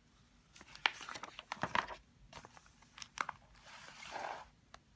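Paper rustling and crinkling with scattered small clicks and taps, and a longer swish about four seconds in: a book's pages being handled and turned.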